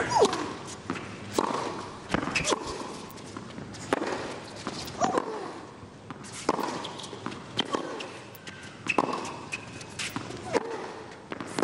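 Tennis rally on a hard court: a serve, then the ball struck back and forth by racquets, a sharp pop about every second, with a player's short grunt on several of the shots.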